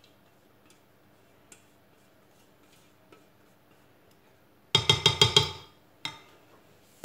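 A quick run of sharp clinking knocks near the end, a utensil rapped against a mixing bowl, followed by one more knock about a second later. Before that, only faint room tone.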